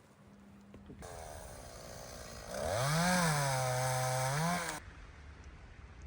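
Two-stroke chainsaw revving up, its pitch sagging for over a second as it bogs under load and rising again, then cutting off abruptly. A quieter run of the saw comes first.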